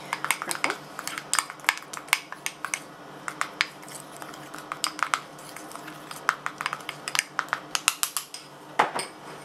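A utensil clinking against a bowl in quick, irregular taps, as food colouring is stirred into royal icing.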